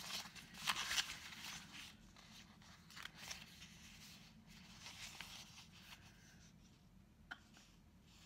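Paper sticker sheets rustling and crinkling as they are handled, loudest in the first couple of seconds, then fainter scattered rustles and one small click near the end.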